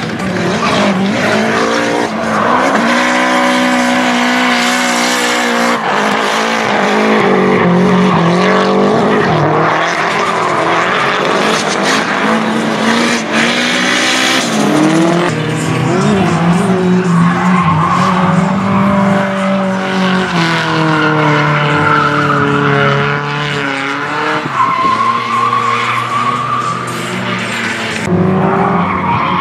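Nissan S-chassis drift car sliding: the engine revs high and bounces up and down with the throttle while the rear tyres squeal and skid. Near the end the engine note drops and changes as another car takes over.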